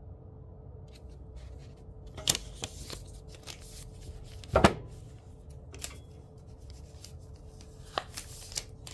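Scattered rustles and clicks from handling a small folded paper note, with one louder knock about halfway through. A faint steady hum sits underneath.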